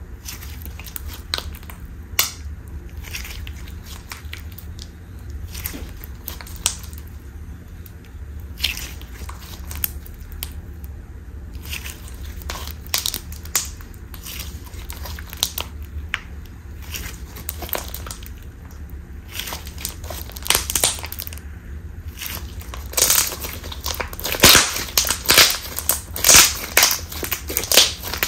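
Thick, gummy clear slime being stretched and squeezed by hand, with air caught in it popping in small crackling clicks. The clicks are scattered at first, then come faster and louder near the end as the slime is worked into a ball.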